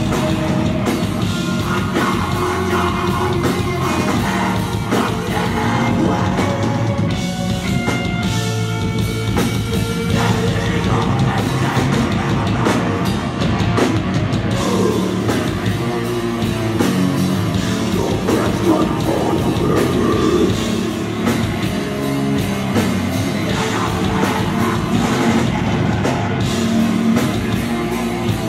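Heavy metal band playing live: distorted electric guitar and drum kit, with a vocalist singing into a microphone.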